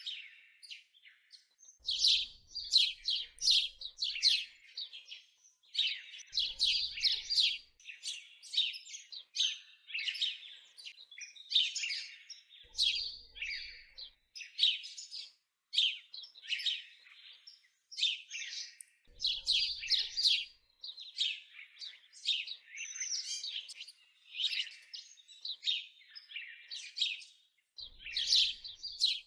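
Small songbirds chirping and trilling in quick, high-pitched phrases of a second or two, one after another with short pauses between.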